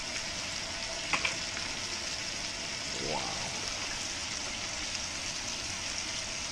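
Cusk fillets frying in oil in a pan on a camp stove: a steady sizzle, with a couple of light clicks about a second in.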